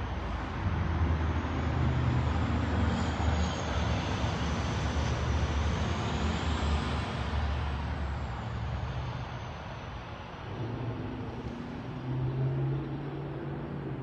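Road traffic passing by: vehicle engine rumble and tyre noise swell about a second in, stay loud through the middle, ease off around ten seconds, and then rise again briefly with a low engine hum near the end.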